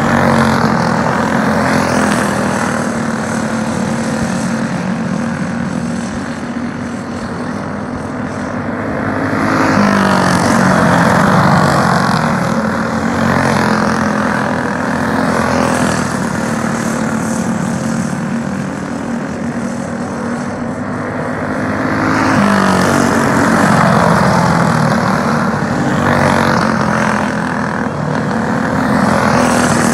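Several racing go-kart engines running together at speed, a steady droning buzz that grows louder twice, about ten and about twenty-two seconds in, with the pitch sweeping as the karts pass close.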